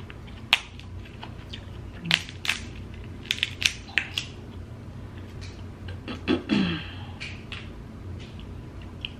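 Cooked Dungeness crab shell being cracked and snapped apart by hand, with a string of sharp cracks and clicks that come thickest in the first four seconds and thin out after.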